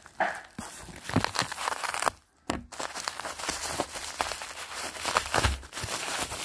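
Plastic packaging being cut and pulled open with a craft knife: irregular crinkling, rustling and tearing with small ticks and a few low bumps from handling, and a brief quiet gap about two seconds in.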